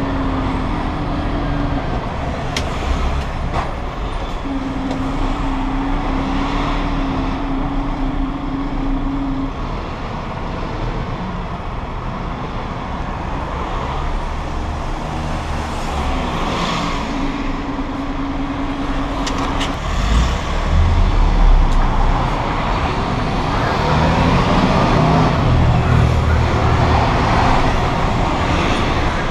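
Heavy lorry driving through city traffic, heard from inside the cab: its diesel engine running under road noise, with a steady tone coming and going a few times. The engine grows louder about two-thirds of the way through.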